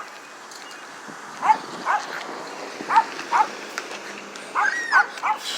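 A dog barking in short, high yips, about half a dozen at uneven intervals, each dropping in pitch.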